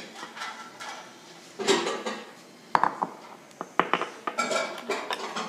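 A spoon scraping and clinking against a mixing bowl and a glass jar as slime is scooped across: a scrape about a second and a half in, then several sharp clinks between about three and four seconds, and more scraping near the end.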